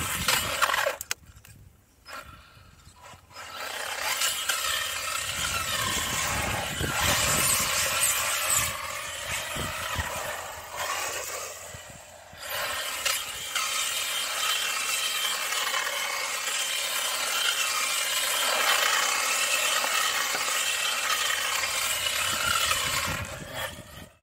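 Xinlehong Q901 RC car driven hard, its electric motor and drivetrain whirring and its tyres scrabbling over the ground as it spins. It stops briefly about a second in and again around twelve seconds in.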